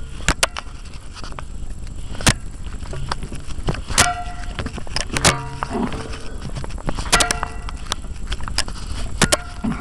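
Propeller shaft of a boat out of the water turning in its water-lubricated cutless bearings, which knock, click and squeak with a ringing tone every second or two over a steady low rumble. The bearings are running dry, without water.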